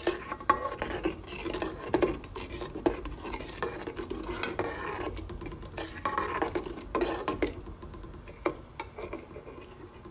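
A spoon stirring brown-sugar and coconut-milk syrup in a metal pot, with irregular scrapes and knocks against the pot's sides and bottom. The strokes thin out to a few light clicks near the end.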